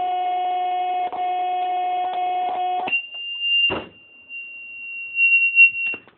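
Circuit-bent answering machine's speech synthesizer stuck on a steady buzzing drone. About three seconds in it switches abruptly to a high steady beep-like tone that holds until near the end. A knock comes partway through, and a few clicks near the end.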